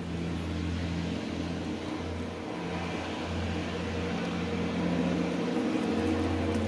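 Steady low mechanical hum of a running motor or engine, dipping briefly a few times.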